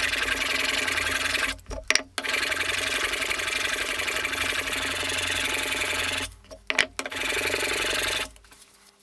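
Plane iron in a Veritas Mk II honing guide rubbed back and forth on a wet 1000-grit Japanese water stone, a steady gritty scraping of steel on stone. It runs in three long spells, broken twice by short pauses with a few clicks, and stops near the end. This is the coarse-stone stage, grinding the bevel flat until the marker lines are gone.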